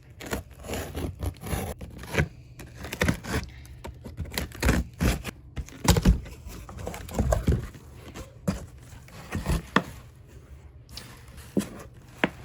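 Cardboard shipping box being handled and its packing tape scraped, cut and torn: an irregular run of short rasping strokes and knocks.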